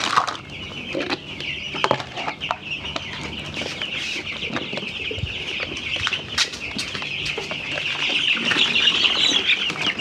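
A brood of young chicks peeping in a continuous high-pitched chorus that grows louder near the end, with scattered light knocks and clicks.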